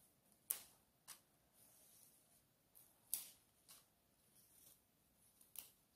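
Near silence with a few faint, sharp splashes and clicks of water as mallow leaves are moved about in a glass bowl of vinegar water.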